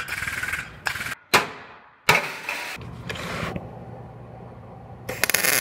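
Auto body shop work sounds in quick succession: a steady hiss, a sharp metallic bang with a ringing tail about a second in, a second hit, more hiss, then a harsh loud noise starting near the end.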